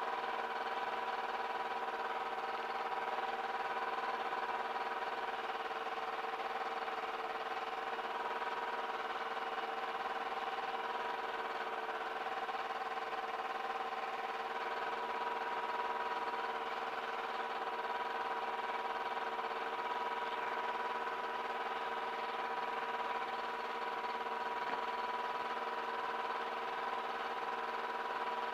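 Small aircraft engine running steadily at idle, heard through the headset intercom recording as a steady hum of several fixed tones with the low end cut away.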